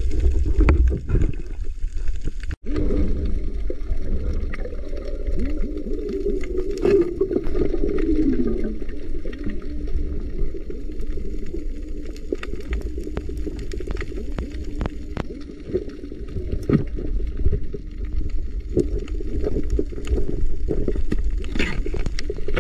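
Underwater sound heard through a diving camera's housing: a muffled low rumble of water with bubbling and many scattered sharp clicks. There is a brief dropout about two and a half seconds in.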